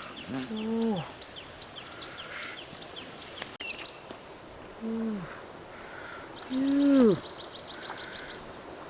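A person's wordless drawn-out "ooh" calls, three of them, each falling in pitch at the end, the last the loudest. Faint insect or bird ticking runs underneath, with a quick run of high ticks near the end.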